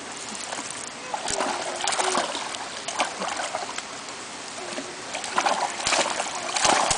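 Water splashing in a shallow stream: a hooked trout thrashing at the surface and a small dog wading after it, over the steady rush of the stream. Several sharp splashes, the loudest near the end.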